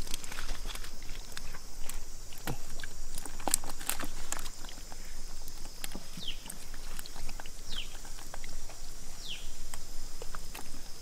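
Scattered wet splats and clicks of mud and water being worked by hand, over a steady high insect drone, with a few short falling chirps.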